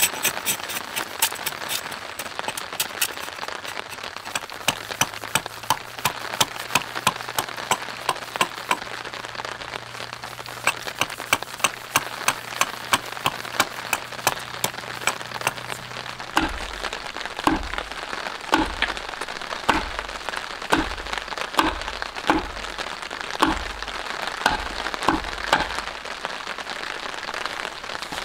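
A knife blade chopping into the edge of a wooden board on a chopping stump, making quick sharp clicks several times a second. About halfway through come slower, heavier hatchet chops into the wood, each with a dull thud from the stump, about one or two a second.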